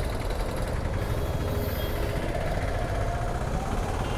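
Honda NX500's 471 cc parallel-twin engine running steadily, heard with a heavy low rumble on the microphone.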